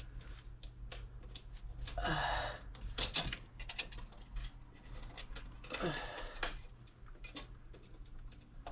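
Faint clicks and taps from hand work with tools, with two short scraping rustles about two seconds and six seconds in, over a steady low hum.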